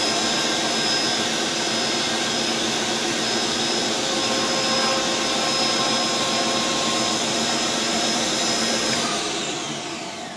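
Motenergy ME1004 48-volt brushed DC motor of an electric-converted riding mower running at a steady speed, a whir with a few steady high tones. Near the end it spins down, fading as its pitch falls.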